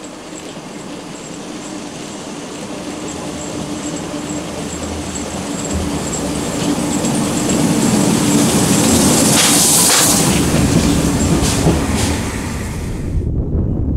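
Steam locomotive TKVJ nr 12 approaching and passing close beneath. Its sound grows louder to a peak, with a few sharp clicks, then cuts off suddenly near the end, leaving a low rumble.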